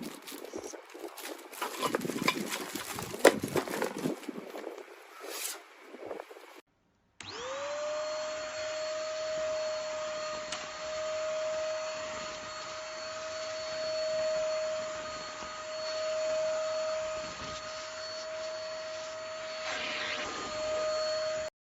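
For the first few seconds, plastic vacuum attachments are handled and clicked together. After a short gap, the Shimono SVC1015 cyclone vacuum cleaner's motor spins up with a rising whine and then runs at a steady high pitch with a rushing airflow noise. It cuts off suddenly near the end.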